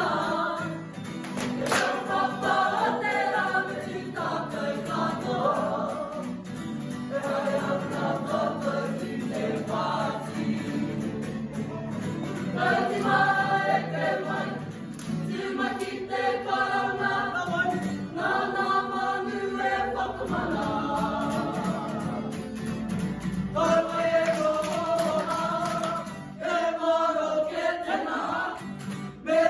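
A kapa haka group of men and women singing a Māori action song together in unison, accompanied by guitar.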